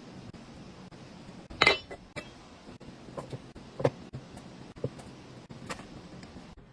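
Kitchenware clinking: a scattered series of light knocks and clinks. The loudest comes a little under two seconds in and rings briefly.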